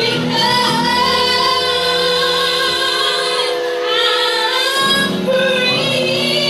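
A girl singing a gospel song into a handheld microphone, holding long notes that bend up and down, over a steady low backing accompaniment.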